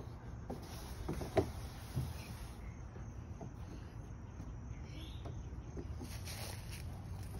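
Scattered soft knocks and rubs from a toddler's bare feet and hands on a plastic wave slide as he climbs up it, the sharpest about a second and a half in, over a low steady rumble.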